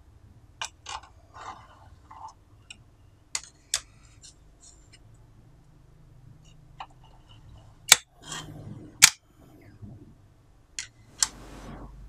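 Punched plastic key cards handled on a wooden table: scattered sharp clicks and light taps, the two loudest about a second apart.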